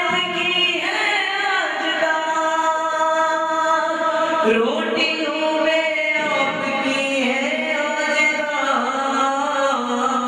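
A man singing a manqabat, an Urdu devotional poem, in long held notes that glide from one pitch to the next.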